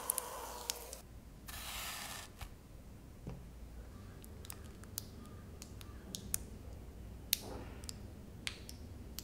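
Hot frying oil sizzling and crackling around a breaded potato corn dog as it is lifted out, stopping about a second in. Then a brief hiss and a scatter of sharp light clicks and taps.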